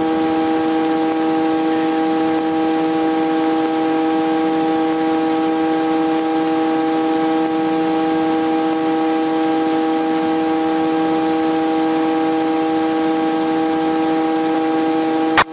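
Helicopter in flight heard from the cabin: a steady drone with several even tones over a broad hiss, unchanging in pitch, which cuts off abruptly near the end.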